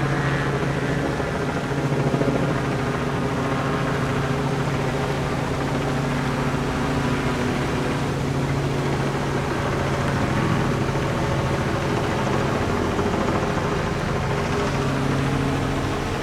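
Robinson R44 Raven helicopter flying overhead, its piston engine and rotor making a steady, even drone that holds one low pitch throughout.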